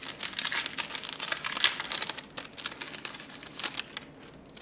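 A trading-card pack wrapper being torn open and crinkled by hand, a dense crackling that dies down about four seconds in.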